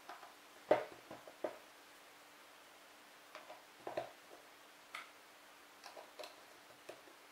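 Small plastic fountain nozzle parts being twisted and pressed together by hand: about a dozen light, irregular clicks and taps, the loudest about a second in.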